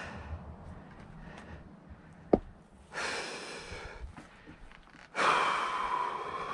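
A person breathing hard from the exertion of splitting firewood by hand, with two heavy exhalations, the second louder and lasting over a second. A single sharp knock sounds a little after two seconds in.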